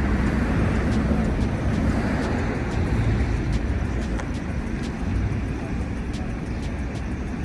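Street traffic noise: vehicle engines and tyres giving a steady rumble that eases off slightly.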